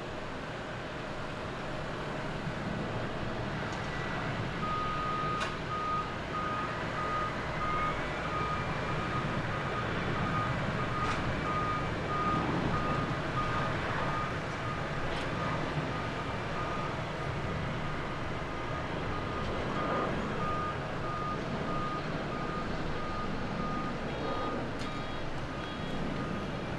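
Boeing 737-700's CFM56 jet engines at takeoff thrust during the takeoff roll and climb-out: a steady roar with a whine that rises about seven seconds in and then holds. A rapid pulsing beep sounds behind it from about five seconds in.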